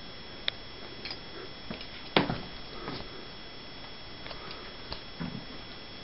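Handling noise from a handheld camera: a few faint clicks and one louder knock about two seconds in, over a steady hiss with a faint high whine.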